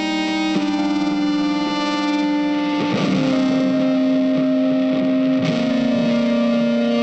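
Background music: slow, sustained held notes and chords that change about half a second in and again near the middle.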